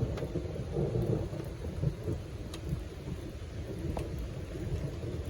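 Thunderstorm: low rolling thunder rumbling continuously over the steady hiss of rain, with a few faint sharp ticks.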